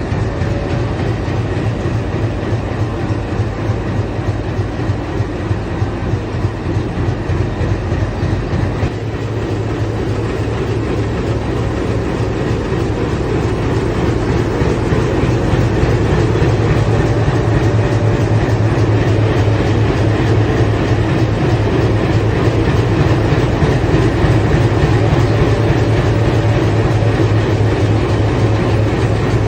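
A WDG3A diesel locomotive's 16-cylinder ALCO engine running with a steady low hum and a rapid firing throb, growing somewhat louder about halfway through.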